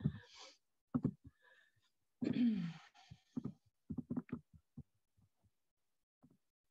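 Computer mouse clicks and soft knocks on a desk, with a brief low vocal murmur about two seconds in, followed by a quick cluster of clicks.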